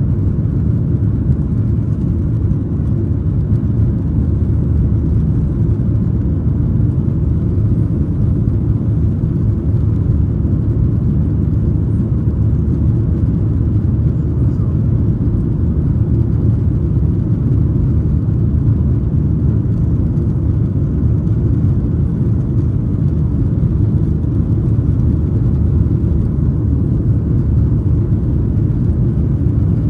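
Boeing 737 cabin noise heard from a window seat over the wing: a steady, loud, low rumble of the turbofan engines and airflow during the climb after take-off.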